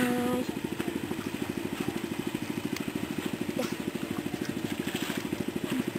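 A small engine running steadily nearby with an even, fast chug of about ten beats a second; a child's voice trails off right at the start.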